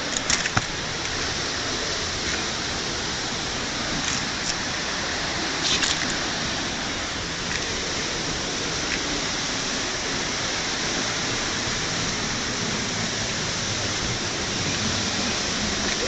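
Rushing water of a cascading forest stream, a steady even rush, with a few light clicks in the first six seconds.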